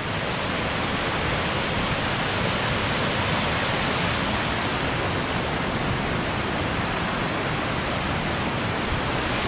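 Krka River water rushing steadily over shallow travertine cascades close by, an even unbroken rush of falling water.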